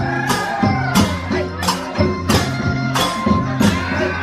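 Festival procession music with a steady beat of drums and jangling cymbal-like percussion, about three hits a second, over a sustained low drone, with a sliding melody line above.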